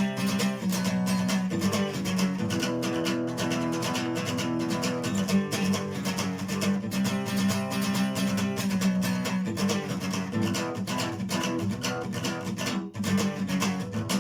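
Acoustic guitar strumming chords in a steady rhythm, with no voice: the instrumental ending of the song.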